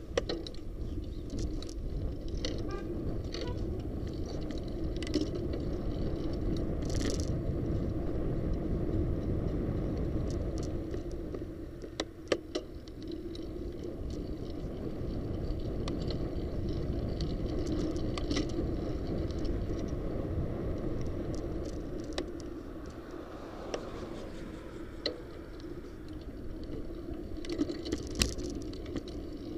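Riding noise of a bicycle: a steady rush of wind and road noise on the camera's microphone that swells and eases a few times, with scattered small clicks and rattles from the bike and the camera mount.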